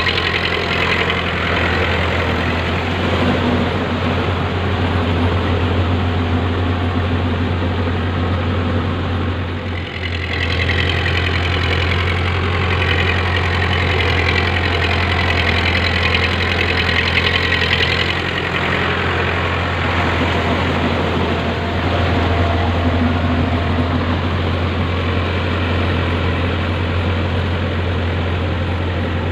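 Diesel engine of a Powertrac Euro 55 tractor running steadily under load as it drives a rotavator through a flooded paddy field.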